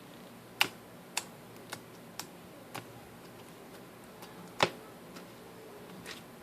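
Slime being squeezed and poked by hand, giving a string of sharp clicks and pops, about two a second at first, with a loud pop about four and a half seconds in.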